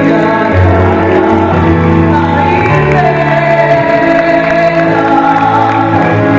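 Music with a singing voice over held bass notes that change every second or so, playing steadily.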